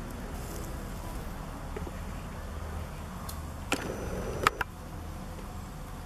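Steady low outdoor rumble, with a few sharp clicks a little under four seconds in. The loudest click comes about four and a half seconds in.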